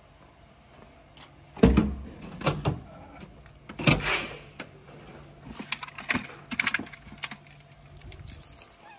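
A car's open rear hatch being handled: a heavy clunk about one and a half seconds in, another loud clunk with rustling near the middle, then a run of sharp clicks and knocks as things are moved in the cargo area.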